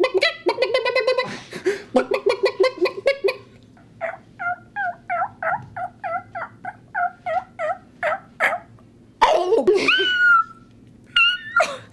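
People imitating farm-animal calls with their voices: a rapid warbling gobble like a turkey for about three seconds, then a run of short clucking calls about three a second, then a longer high gliding call and a brief one near the end.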